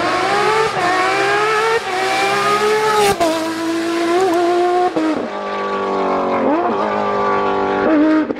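Rally car engines revving hard and changing gear, their pitch rising and falling, in short clips that change abruptly every second or two. There is a sharp crack about three seconds in.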